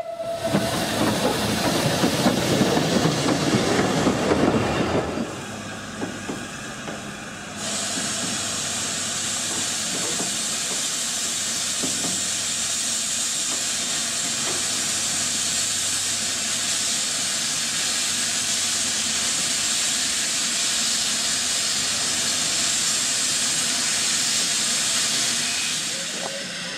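L&Y Aspinall 'A Class' 0-6-0 steam locomotive running past close by for the first few seconds. Then, about eight seconds in, a steady loud hiss of escaping steam starts as the engine stands. The hiss holds for most of the rest and fades near the end.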